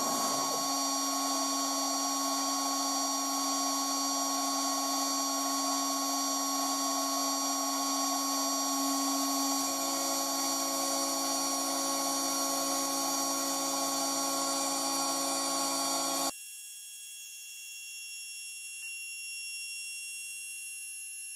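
CNC router spindle running with a steady high-pitched whine while its end mill mills an MDF board; a lower tone joins partway through. About three-quarters of the way in, the sound drops suddenly to a quieter, thinner whine.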